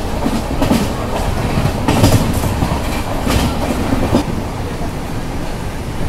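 Moving train heard from inside a passenger coach: a steady rumble with wheels clattering over rail joints. The clatter comes several times in the first four seconds, then settles to an even rumble.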